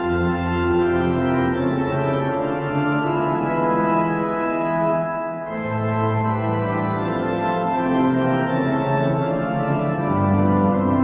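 Organ music playing slow, held chords that change every second or two, with a brief lull about five seconds in.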